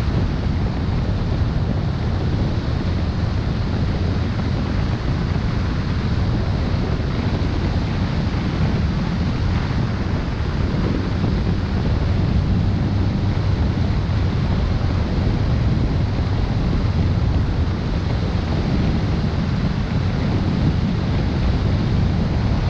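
Steady wind buffeting the microphone on a moving motorbike: a constant low rush mixed with road noise.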